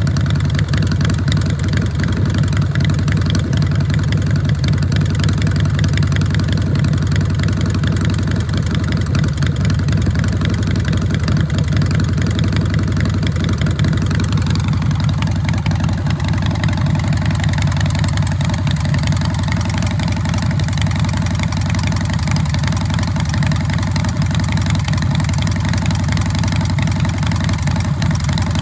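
Carbureted 111-cubic-inch S&S V-twin of a 2006 American Ironhorse Texas Chopper running steadily through its custom exhaust, with a change in tone about halfway through.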